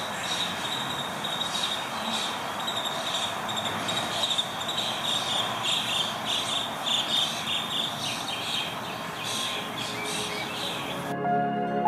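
Backyard ambience: a steady hiss with a rapid, high-pitched chirping pulsing over it. Soft sustained music notes come in near the end.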